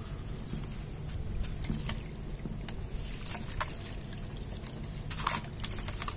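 Damp, pressed sand crumbling and crunching between the fingers, with crackling clicks throughout and the loosened grains trickling and pattering into a basin of water; the loudest crunch comes a little past five seconds.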